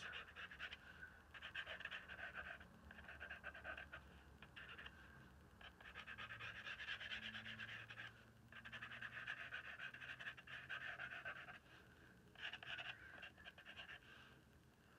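Charcoal pencil scratching on a painted journal page in faint runs of strokes, each a second or two long, with short pauses between. The pencil is thick, and drags roughly on the surface.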